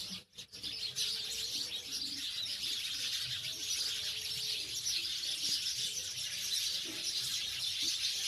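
A flock of house sparrows chirping together in a dense, continuous chatter of short chirps, briefly cut off just under half a second in.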